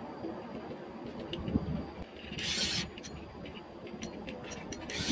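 Wind and sea noise around a spinning rod and reel under load while a hooked fish is fought, with a short hissing rush about halfway through and a run of small clicks in the second half.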